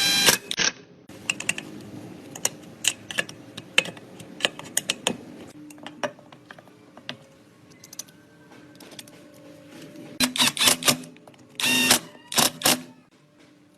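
Metal hand tools and parts clicking, clinking and knocking in irregular bursts while an old 125 cc motorcycle is being worked on. A few strikes ring briefly, one right at the start and one about twelve seconds in.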